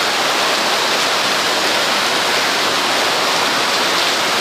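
Steady, loud rush of falling water pouring into the building through the hurricane-damaged, missing roof.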